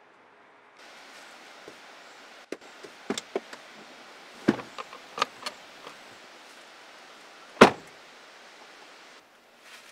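Rear bench seat cushion of a 2021 Ford F-150 crew cab being lifted and handled: a run of sharp clicks and knocks from its latches and hinges, then one loud thump near the end, over a faint steady hiss.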